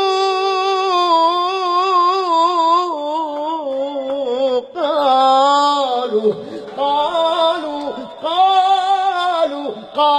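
A solo voice singing a long wordless melisma in Iraqi Shia devotional style. It holds one note with a wavering vibrato, then moves through several shorter sliding phrases with brief breaks.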